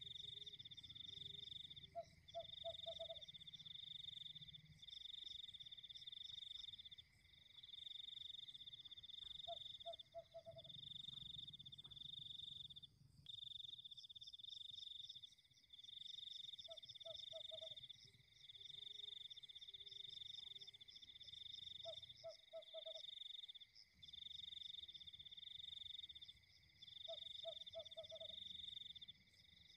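Faint night chorus of frogs and insects: a high trilling that breaks off every second or two, over a steady thin high tone, with a short low pulsed frog croak every few seconds.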